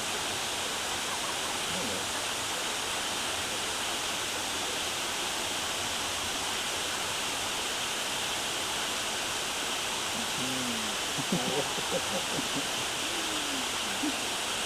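Waterfall rushing: a steady, even hiss of falling water. A few faint voices come through briefly about two-thirds of the way in.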